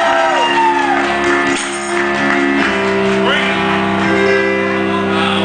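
Live music with long held chords, and voices singing and calling out over it.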